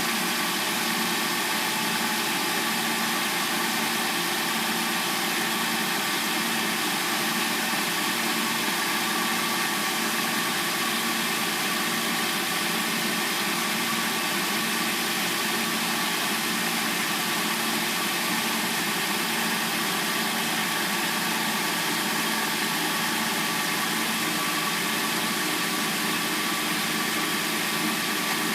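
Hyundai Sonata's replacement engine idling steadily after a cold start, with an even, unchanging running noise.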